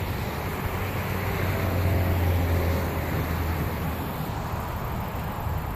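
A car engine droning at a distance, strongest about two seconds in and then fading, over a steady hiss of wind and road noise.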